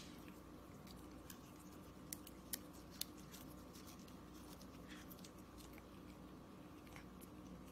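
Long-haired cat biting and chewing a raw salad leaf: quiet crisp crunching, with three sharper crunches about two to three seconds in.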